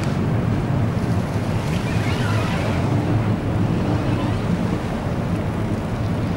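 Wind blowing across the microphone over a steady low rumble, heard on an open ship's deck.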